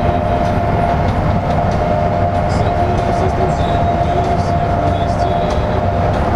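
Cabin noise of a LiAZ-5292 bus cruising at highway speed: a steady low drone of engine and tyres on the road, with a constant whine running through it and faint light rattles.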